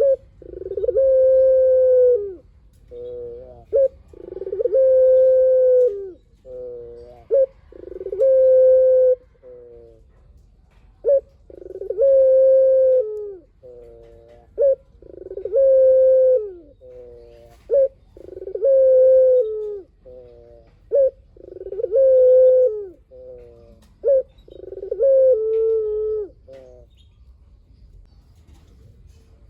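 A puter (Barbary dove) cooing over and over. Each phrase starts with a quick run of short stuttering coos and ends in one long held coo, and the phrases come about every four seconds. The cooing stops a couple of seconds before the end.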